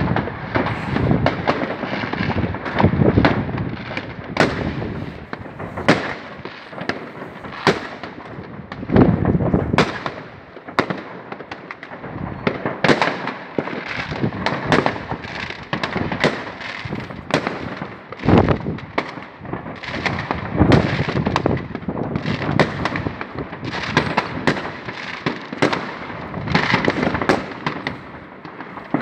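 New Year's Eve fireworks and firecrackers going off without pause: dense crackling and popping, broken by a few heavier booms.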